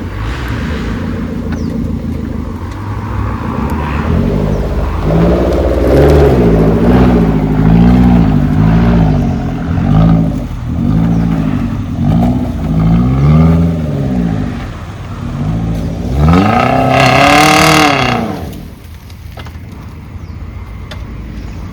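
Off-road 4x4 engine revving, its pitch rising and falling about once a second over and over. This ends in one hard, high rev near the end that drops away suddenly.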